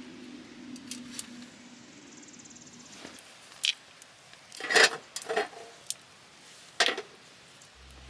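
A low steady hum fades out about three seconds in, then five or so sharp clinks and knocks of small hard objects, the loudest near the middle.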